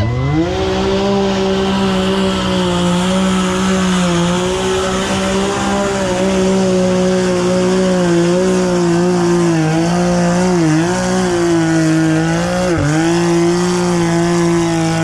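Mud-racing vehicle's engine revving up and then held at high revs at a steady, high pitch, with a couple of brief dips in revs about two-thirds of the way through.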